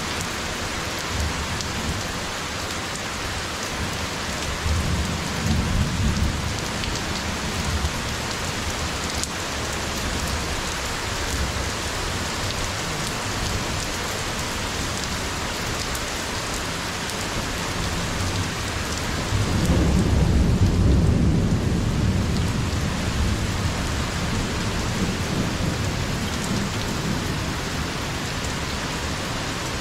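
Heavy rain falling steadily, with two rolls of thunder: a shorter one about five seconds in and a longer, louder one about twenty seconds in.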